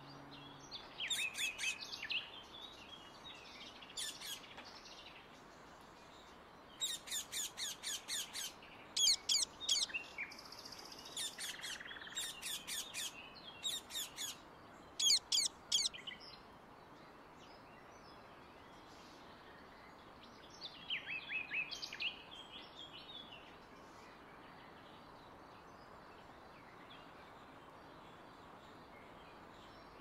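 Indian ringneck (rose-ringed) parakeets calling: bursts of quickly repeated shrill, screeching notes, several series in the first half and another run about twenty-one seconds in.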